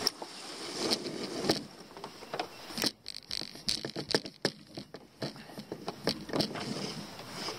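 Deck gear and lines being handled on a small sailboat: a run of irregular clicks, knocks and light rattles over a faint hiss.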